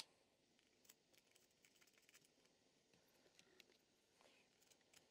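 Near silence: room tone with faint scattered clicks from handling the opened phone.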